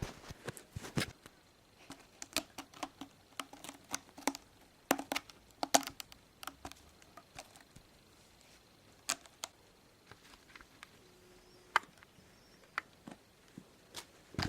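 Kitten pawing and scratching with its claws: irregular sharp clicks and scratchy taps, thick in the first six seconds, then scattered.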